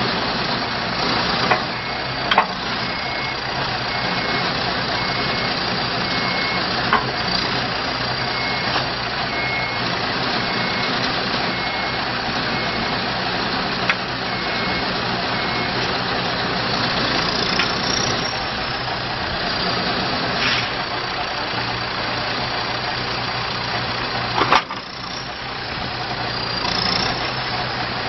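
John Deere 310J backhoe loader's four-cylinder diesel engine running steadily. Its backup alarm beeps about once a second through the first half, with a few sharp clanks, the loudest near the end.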